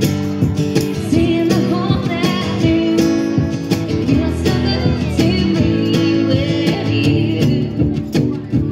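Live country song: a strummed acoustic guitar with regular sharp strokes on the beat, and a woman singing the lead melody into a microphone from about a second in.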